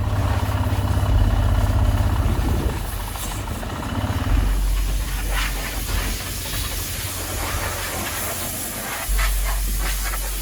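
A large engine running steadily under a loud, even hiss, with a few brief clatters.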